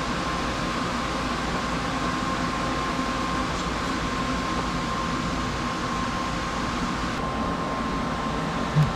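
Steady mechanical hum with a faint, even whine running through it, and one short low thump near the end.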